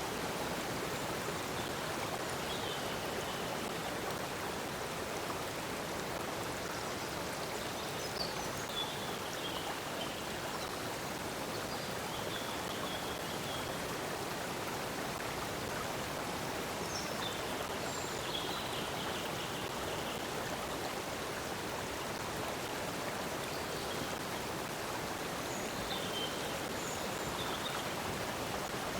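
Stream water flowing and burbling steadily, with short high bird chirps now and then.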